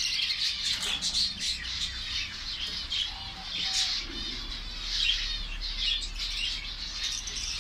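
Many small caged birds chirping and chattering at once, short high calls overlapping without a pause.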